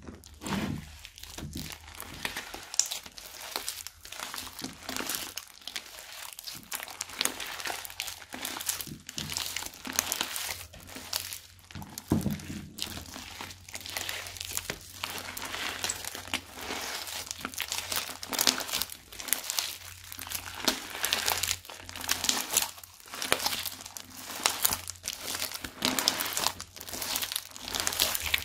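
Foamy slime being kneaded, folded and stretched by hand, giving a dense, irregular stream of sticky crackles and small pops.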